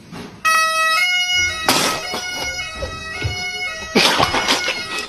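A loud, reedy droning tone with many overtones, like a wind instrument, starts suddenly about half a second in and holds, shifting pitch slightly. Two loud noisy bursts cut across it, about two seconds and about four seconds in.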